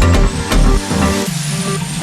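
Electronic background music with a heavy bass beat. The beat drops out about a second in, leaving sustained synth chords under a high sweep that rises and then falls.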